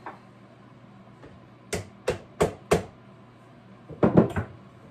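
Light taps on an 1873 Springfield Trapdoor rifle's metal parts to drive a loosened part free. Four evenly spaced taps come about two seconds in, then a quick run of three or four more near the end.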